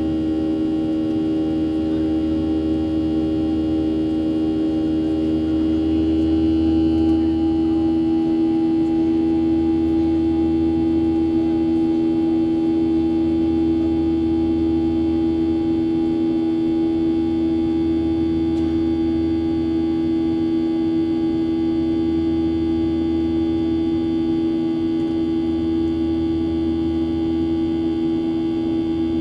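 Steady drone of a Boeing 737's CFM56 turbofan engines heard inside the cabin during the climb after takeoff: a strong low hum with a rumble beneath and a thin high whine above. The whine shifts slightly about six seconds in.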